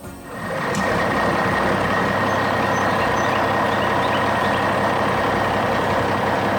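Heavy vehicle engine running steadily, fading up over the first half second, with a steady high whine on top.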